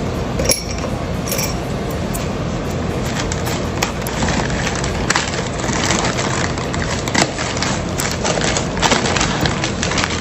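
Plastic packaging rustling and crinkling continuously as items are unpacked and handled, with many sharp crackles.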